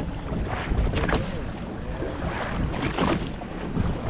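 Wind buffeting the microphone and choppy water splashing against a small fishing boat's hull, in irregular gusts and slaps.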